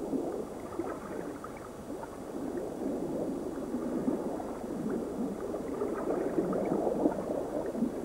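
Underwater ambience of bubbling, gurgling water, a little louder from about three seconds in.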